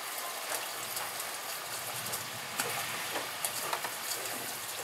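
Steady rain falling during a thunderstorm: an even hiss with scattered sharp drop clicks close by.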